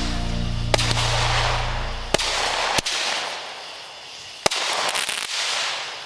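Consumer 1.4G fireworks going off: a handful of sharp bangs, each followed by a hissing crackle. The loudest bang comes about four and a half seconds in.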